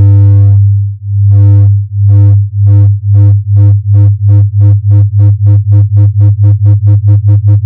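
Industrial fan start-up sound effect: a loud low hum with a throbbing tone on top whose beats speed up steadily, from one slow swell to about four beats a second, as the fan spins up from standstill. The clean, evenly pitched tone makes it sound synthesized.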